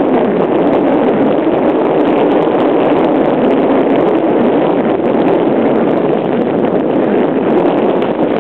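Steady rushing noise of breaking ocean surf and wind on the microphone, unchanging throughout.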